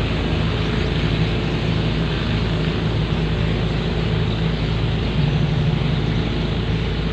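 Landing craft's diesel engine running steadily under way, a constant drone with a low hum.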